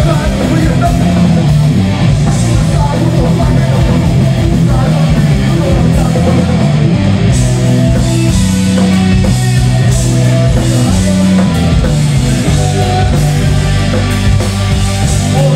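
Live heavy rock band playing loud: distorted electric guitars, bass and a drum kit driving without a break, heard from within the crowd.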